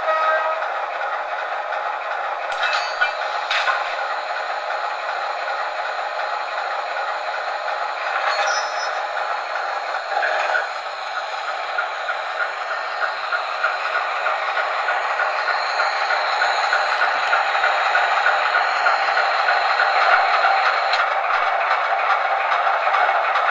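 O-gauge model train running on track behind an MTH Premier ALCO S-2 diesel switcher: a steady clatter and rumble, with a few sharp clicks in the first half, growing slowly louder toward the end.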